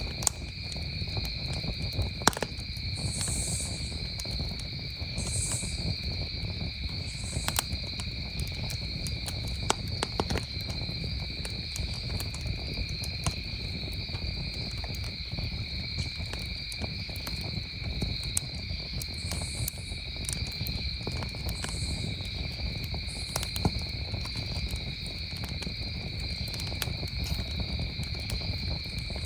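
Wood campfire crackling, with scattered sharp pops, over the steady, unbroken trilling of crickets. A higher, short insect buzz comes and goes every couple of seconds.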